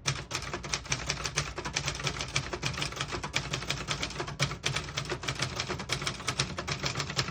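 A 1972 Brother Prestige 688 manual portable typewriter being typed on at a steady pace, its typebars striking the platen several times a second in an unbroken run.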